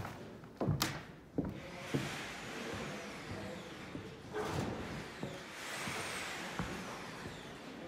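Work noise in a large hall: several sharp knocks and clanks in the first two seconds, then a steady rushing noise with a faint whine that rises and falls around six seconds in.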